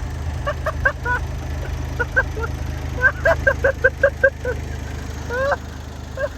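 Heavy machine's engine running steadily at idle, with bursts of short, high-pitched honking calls over it, quickest in a run of about six a second midway through.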